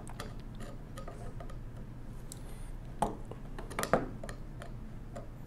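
Large flat-blade screwdriver working a stiff screw out of the frame of a 1920s Monroe mechanical calculator, with a few scattered metallic clicks and creaks, the sharpest two about three and four seconds in.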